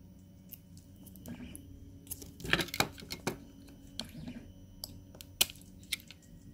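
Utility knife blade cutting and prying support material off a small 3D-printed plastic part: scattered sharp clicks and crackles as bits of plastic snap away. There is a dense cluster of snaps about two and a half seconds in and one hard click a little past five seconds.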